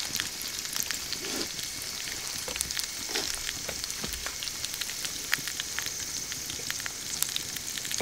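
Green peppers sizzling in an iron paella pan over a charcoal fire: a steady hiss of frying dotted with many small sharp pops and spits.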